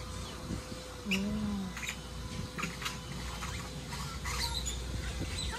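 Outdoor ambience with scattered short bird chirps, a single low call about a second in, and a faint steady hum.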